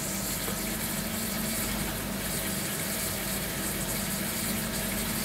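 Charmilles Robofil 440 CC wire EDM machine running: dielectric water jetting steadily from the wire-guide head onto the workpiece, over the steady hum of the flushing pump.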